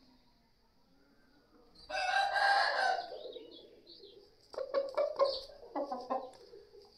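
Aseel rooster crowing once, a call about a second long, followed a little later by a string of short clucks.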